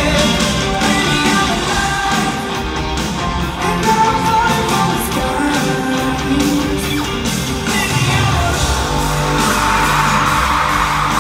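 Live rock band playing at full volume: electric guitars over drums and keyboard. A hiss-like wash of sound swells in over the last few seconds.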